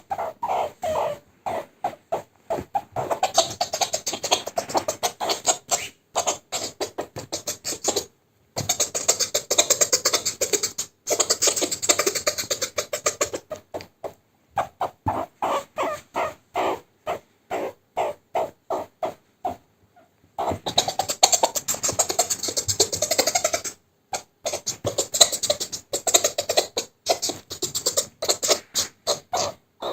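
Meerkat chattering while being tickled: rapid runs of short pulsed calls, broken by a few brief pauses.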